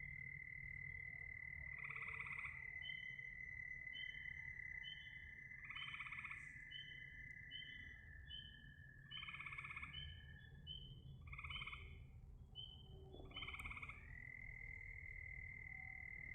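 Frogs calling at night: a steady high trill runs underneath quick chirps that repeat about twice a second. Five louder croaking calls come a few seconds apart.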